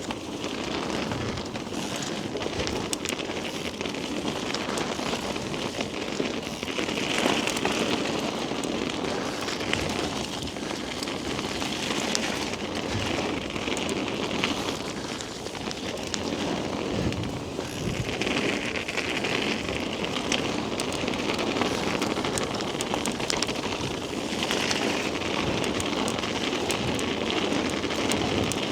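Mountain bike tyres rolling fast over a wet, muddy forest trail: a continuous noisy rush of tyre and trail noise, swelling now and then, heard on a bike-mounted action camera.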